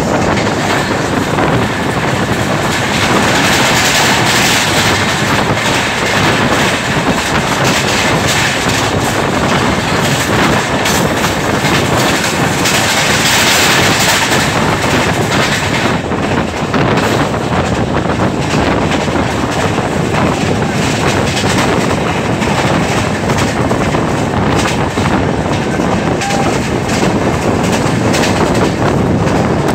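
Two trains crossing at speed: a loud rush of wind and wheel clatter as an express of ICF coaches passes on the next track, heard from the open door of a moving train. About halfway through the passing train is gone, leaving the own train's wheels clattering over the rail joints with wind noise.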